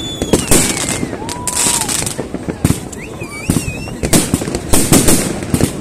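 Fireworks going off in quick, irregular succession: many sharp bangs and crackles, with a few thin whistles sliding in pitch.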